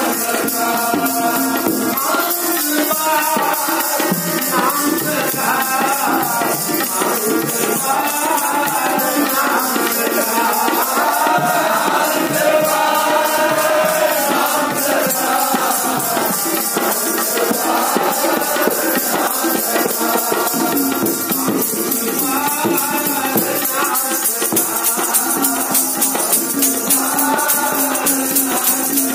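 Sikh kirtan: devotional singing of gurbani with harmonium, over the fast, steady metallic jingling of a chimta.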